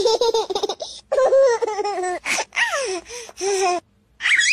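High-pitched laughter in a run of short bursts, ending in a brief rising high note.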